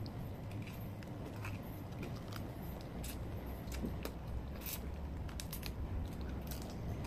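Cooked crab being picked apart by hand and chewed: small scattered clicks and cracks of crab shell, over a low steady hum.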